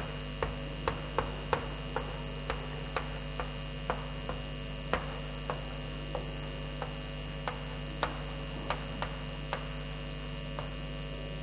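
Chalk tapping and scraping on a chalkboard while writing: short, irregularly spaced clicks, about two a second, over a steady low hum.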